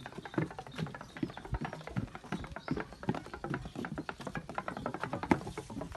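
Found-object percussion: a dense run of quick, irregular taps and clicks drawn from materials.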